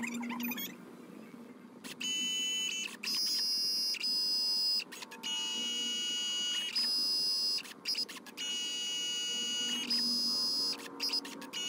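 Kodak instant photo printer making a dye-sublimation print: its paper-feed motor whines in a high, steady tone, starting about two seconds in. The whine comes in stretches of a second or two, broken by short clicks and pauses, as the paper passes through for the yellow and then the magenta colour layer.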